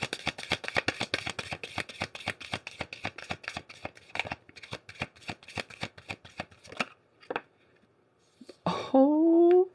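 Deck of tarot cards being shuffled by hand: a rapid run of soft card flicks, several a second, that stops about seven seconds in. A short burst of a person's voice follows near the end.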